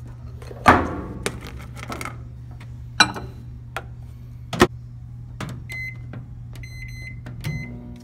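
Sunbeam 900-watt microwave oven being handled: clacks and knocks at its open door, then the door shut with a sharp knock a little past halfway. A run of short high keypad beeps follows as the cook time is set, over a steady low hum.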